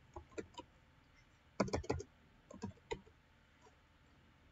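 Computer keyboard keys being typed: a few faint separate keystrokes, then a quick run of clicks about two seconds in and a few more near three seconds.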